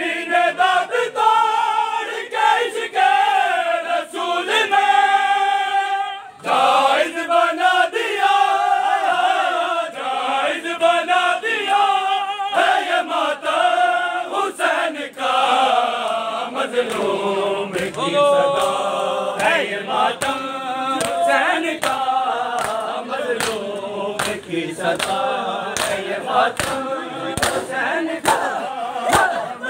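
Group of men chanting a nauha, a Shia lament, in unison. About halfway through, sharp rhythmic slaps of palms on bare chests (matam) come in, about one and a half a second, keeping time with the chant.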